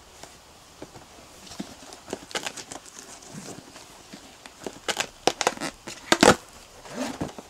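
Packing tape being ripped off a cardboard box and the cardboard handled: a series of short tearing rasps, the loudest about five to six seconds in.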